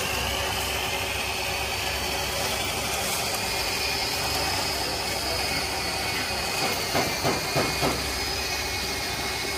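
Steady hiss of compressed air with a faint high whine over a low hum, and a few light knocks about seven to eight seconds in.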